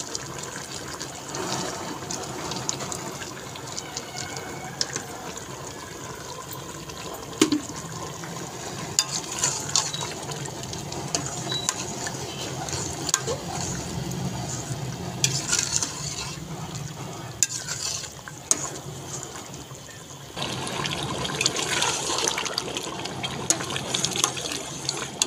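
Mutton curry frying in ghee in an aluminium pressure-cooker pot, sizzling and bubbling while a steel ladle stirs it, scraping and knocking against the pot now and then. The sizzling gets louder about twenty seconds in.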